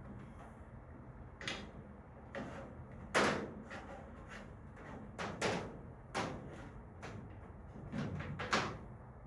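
Hands working inside a spray booth cabinet: a series of irregular short knocks, clunks and rustles as wires and parts are handled. The loudest knock comes a little over three seconds in.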